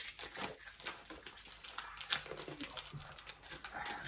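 Plastic sweet wrapper crinkling as it is handled and pulled open by hand: a run of small, irregular crackles.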